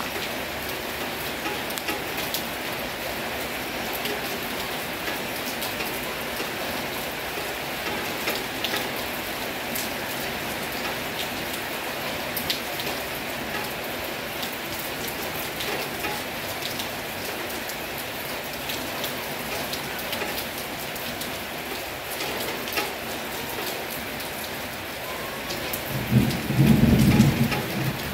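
Heavy rain falling steadily, a dense hiss dotted with sharp drop ticks. Near the end, a low rumble of thunder swells up for about two seconds.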